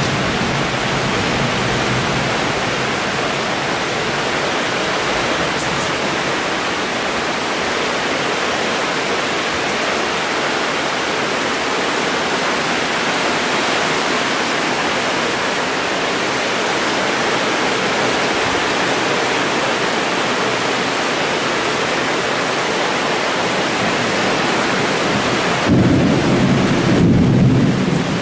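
Heavy rain pouring steadily in a dense, even hiss. About two seconds before the end, a louder low rumble rises over it for a couple of seconds.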